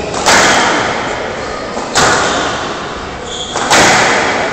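Squash rally: three loud smacks of ball on racket and walls, about a second and a half to two seconds apart, each echoing in the hall.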